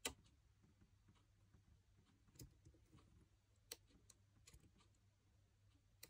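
Faint metal clicks of a Lishi 2-in-1 dimple pick being worked in an Ultion WXM euro profile cylinder. There is a sharp click right at the start, two more about two and a half and three and a half seconds in, and softer ticks between.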